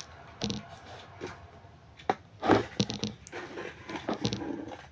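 Scattered clicks and scrapes of a multimeter and its probe leads being handled, as the leads are moved between the meter's terminals.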